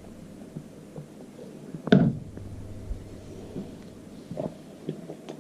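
Quiet room with a few small clicks and one short, louder knock or thump about two seconds in, over a low steady hum that stops around three seconds in.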